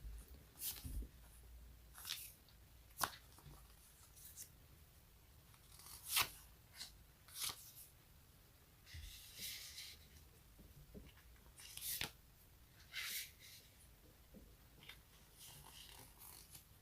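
Sticky, tacky surfaces peeled apart over and over, making short crackling rips. There are about a dozen separate peels, with a couple of longer, drawn-out ones near the middle and later on.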